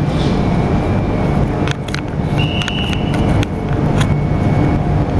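200 Series Shinkansen train pulling into the station: a loud, steady rumble with a few sharp clicks and a brief high squeal about halfway through.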